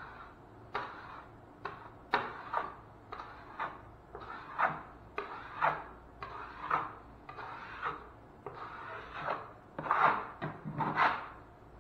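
Drywall knife scraping over wet joint compound on a drywall patch in quick short strokes, up to about two a second, smoothing the mud; the strokes are loudest near the end.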